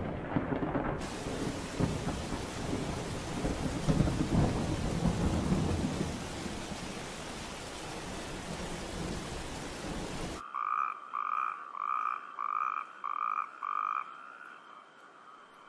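Thunderstorm: rolling thunder over steady rain, which cuts off abruptly about ten seconds in. Then a frog calls six short, even piping notes in a row, about two a second.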